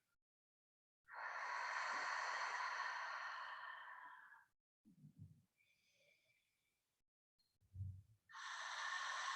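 A person breathing slowly and deeply close to the microphone: one long breath of about three seconds, two soft low thumps, then another long breath starting near the end.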